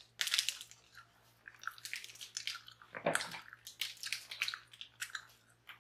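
A foil candy wrapper being bitten and torn open and then crinkled: a run of short, irregular crackly rustles, with one louder rustle about three seconds in.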